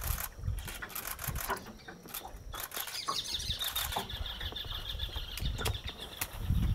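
Giant otters feeding at the water's edge: irregular wet crunching and cracking with small splashes. A fast, high chittering runs from about three seconds in, and a low rumble rises near the end.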